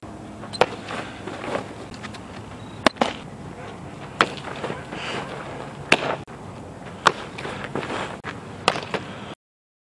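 Softballs smacking into leather gloves: several sharp pops a second or so apart as pitches land in the catcher's mitt and throws are caught at the base, over steady open-air background noise. The sound cuts off suddenly near the end.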